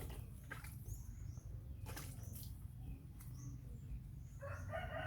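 Faint short high chirps and a few scattered clicks over a low steady rumble, then a rooster starting to crow near the end.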